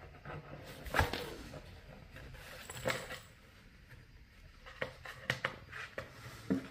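Cat moving and pawing inside a cardboard box: scuffling and scraping against the cardboard, with several sharp knocks scattered through.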